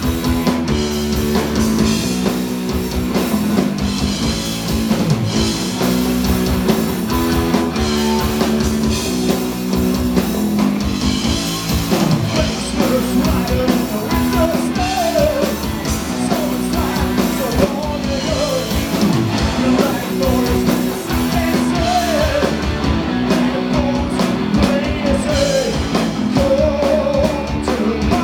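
Live rock band playing a song: electric guitars, bass guitar and drum kit, with a singer's voice coming in about twelve seconds in.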